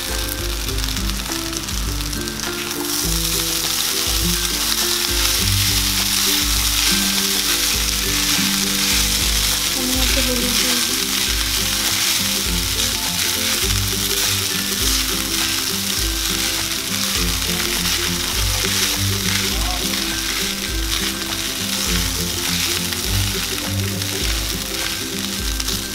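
Soaked flattened rice and vegetables sizzling in hot oil in a kadai as they are stirred together with a spatula. The sizzle grows louder about three seconds in. Soft background music plays underneath.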